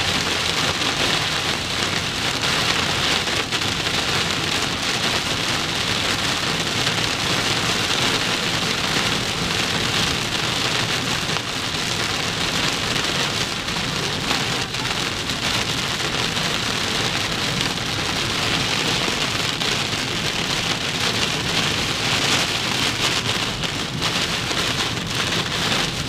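Heavy rain beating on a car's roof and windshield, heard from inside the cabin as a steady, dense hiss.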